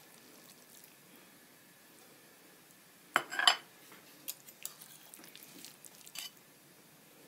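A metal spatula lifting a slice of baked rice gratin out of the pan and setting it on a plate: a short burst of loud scrapes and clinks about three seconds in, then several light clicks of metal against the plate.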